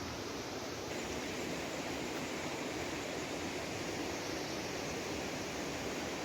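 A mountain creek rushing steadily.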